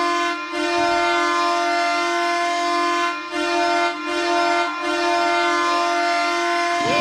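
NHL arena goal horn sounding a long, steady, deep blast after a goal, with a few brief breaks.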